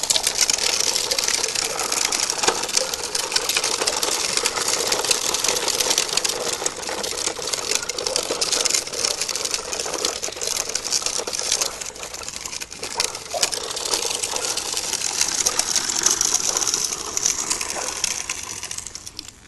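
Continuous crunching and rattling of grit on a gravel path under feet and the hard plastic wheels of a child's pedal tricycle, dying away near the end.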